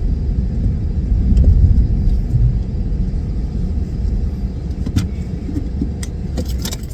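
Car's engine and road rumble heard from inside the cabin while the car is parked, with a few light clicks, cutting off abruptly at the very end as the engine is switched off.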